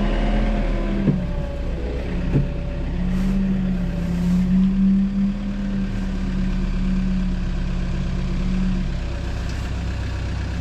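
A vehicle engine running steadily, its pitch swelling and easing slightly a few times.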